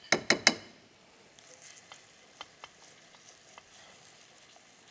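Three quick clinks of a metal spoon, then a spoonful of pancake batter frying in hot oil in a frying pan: a faint sizzle with a few small pops.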